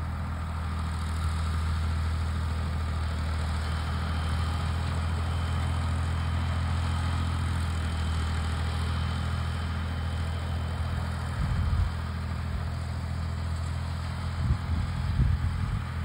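Farm tractor engine running steadily at a constant pace while pulling a round baler, with a few short low bumps near the end.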